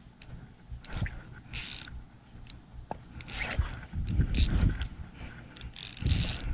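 Fishing reel working against a hooked fish: its gears and ratcheting drag click and whirr in uneven spurts as line is cranked in and pulled off.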